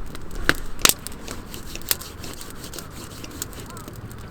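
Irregular sharp clicks and snaps, the loudest pair about half a second and nearly a second in, with a few fainter ones after.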